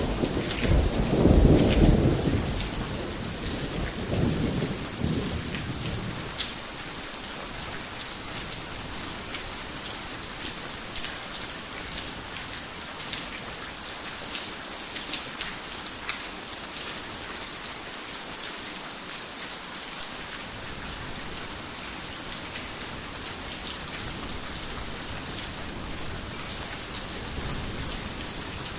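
Heavy rain falling steadily, with a hiss and many separate drops ticking. A roll of thunder rumbles at the start and dies away over the first several seconds.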